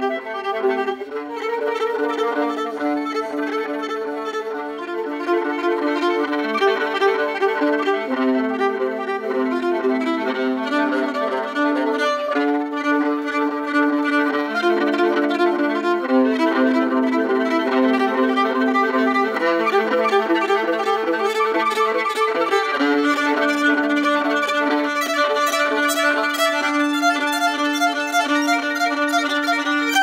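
Solo five-string fiddle, a Dahlia5 by Gary E. Bartig, bowed in a continuous run of notes.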